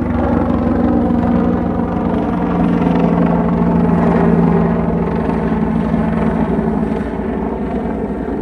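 Helicopter running steadily: a fast, even chop of the rotor blades under a steady engine tone.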